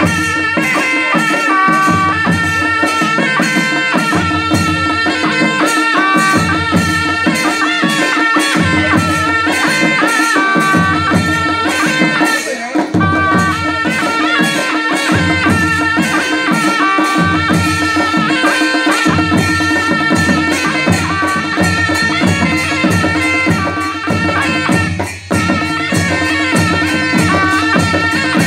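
Panchebaja ensemble playing a dance tune: a wavering sahanai (shawm) melody over a steady drone, with drums and jhyali cymbals keeping a steady beat.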